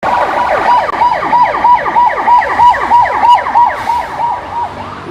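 Electronic ambulance siren, a fast repeating wail that drops in pitch on each cycle, about four cycles a second, starting abruptly.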